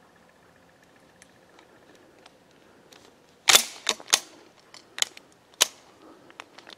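Metallic clacks from a 1925 Winchester 16-gauge shotgun's action being worked by hand after a jam, as the shell is cleared and another is chambered. About six sharp clacks come over three seconds starting about halfway through, the first the loudest, then a few lighter clicks near the end.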